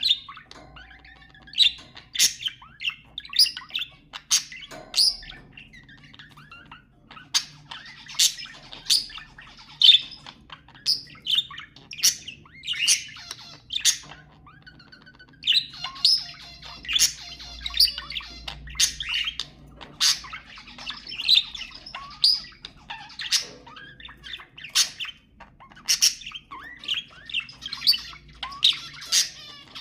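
Budgerigars chattering: a dense run of short, sharp chirps and squawks, several a second, with warbling between them.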